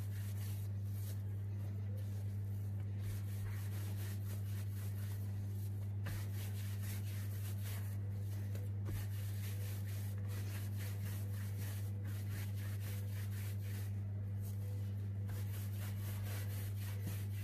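A steady low hum runs throughout. Over it comes faint rubbing as hands roll a rope of tahini dough back and forth on a countertop.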